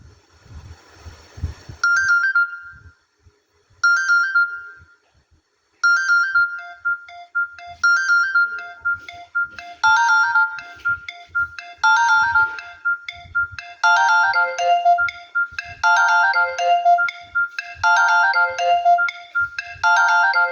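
A Nokia N95 ringtone playing: a short electronic melody that sounds two brief phrases, then runs on continuously from about six seconds in. It grows fuller with added parts from about ten seconds, the pattern repeating roughly every two seconds.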